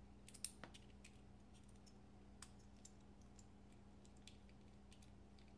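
Faint, scattered clicks and ticks of the IQ-L folding knife's small metal parts being handled and fitted together during reassembly, with one sharper click about half a second in, over a low steady hum.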